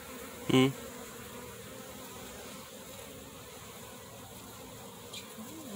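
Honeybees buzzing steadily over the open frames of a nuc colony, a low even hum. About half a second in there is one short, loud sound with a pitch.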